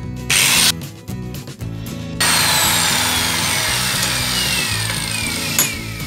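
A power tool cutting: a brief burst, then from about two seconds in a longer cut whose whine falls steadily in pitch.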